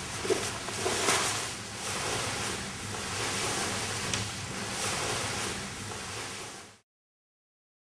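Fabric boat cover rustling and swishing as it is pulled back over a boat, in uneven surges. It cuts off abruptly near the end.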